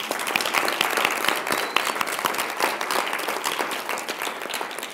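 Audience applauding: many hands clapping densely together, tapering off near the end.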